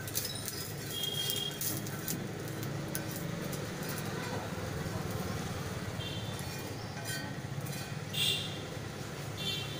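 Metal spatula scraping and clicking against an iron tava in scattered strokes, with a few short high squeaks, over a steady low background hum.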